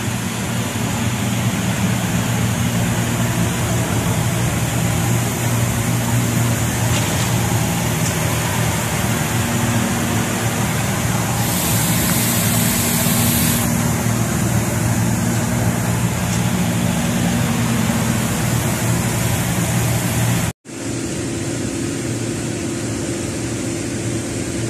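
Steady rush of a paint booth's ventilation fans with a low hum. About halfway through, a hiss of compressed air lasts about two seconds. Near the end the sound cuts out abruptly, then a similar steady air noise carries on.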